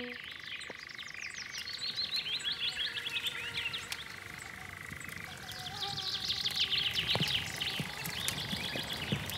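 Outdoor evening wildlife: two trains of rapid, high-pitched chirping calls, each lasting two to three seconds, the second starting about halfway through, over a faint steady high hum.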